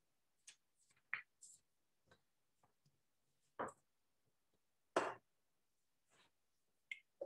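Scattered handling noises from a person moving about: paper rustling and a few soft knocks and bumps, with the loudest bump about five seconds in. Near silence between them.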